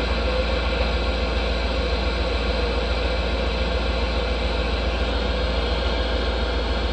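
CB radio receiver hissing with steady static while no station is transmitting, over a constant low hum.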